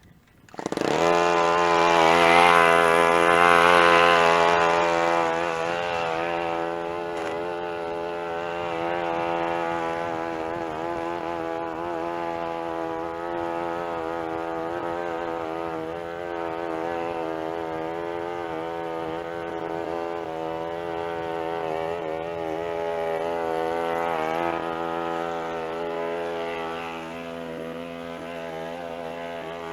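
Small engine of a walk-behind push mower running steadily. It comes in abruptly about half a second in and is louder for the first few seconds.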